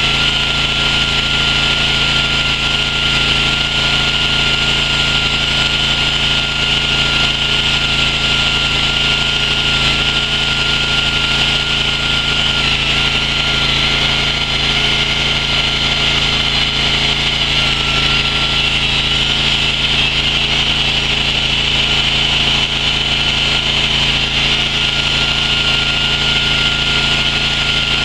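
Stone-cutting chainsaw running steadily under load as its bar cuts deep into a block of stone, with a steady high whine that dips briefly once or twice.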